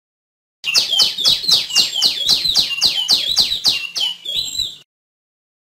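Female tiểu my songbird calling: a quick run of sharp falling notes, about four a second, for about four seconds. It starts and cuts off abruptly, as an edited recording does.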